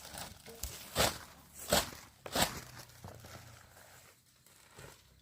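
Rustling and crunching handling noise, with three louder short noisy swishes about a second, a second and three quarters, and two and a half seconds in, then fading.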